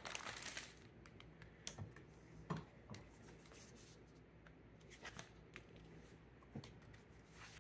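Near silence: room tone with a few faint, brief clicks and taps scattered through it.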